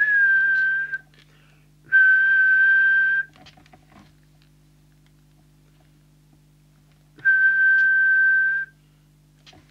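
A man whistling one steady high note into the Fidelity 3000 CB transceiver's microphone, three times: about a second at the start, another a second later, and a longer one near the end. It is a whistle check of the FM transmit deviation just set with the deviation preset. A faint steady hum sits underneath.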